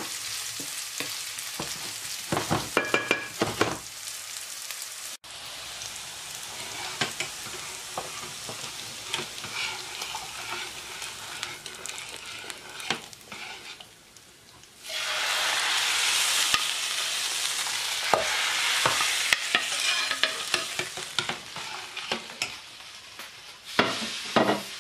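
Small meatballs and onions sizzling as they fry in oil in a pan, with a wooden spoon stirring and knocking against the pan. After a cut about five seconds in, a spoon stirs and clinks in a pot of yogurt soup over a steady hiss that grows louder about halfway through.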